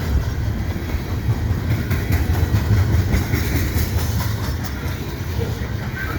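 Freight train hopper cars rolling past, with their wheels clacking over the rail joints over a steady low rumble. Wind buffets the microphone.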